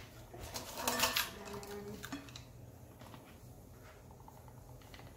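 Light clicks and rattles of a spice jar and plastic measuring spoons being handled over a mixing bowl, mostly in the first two seconds, then quiet room tone.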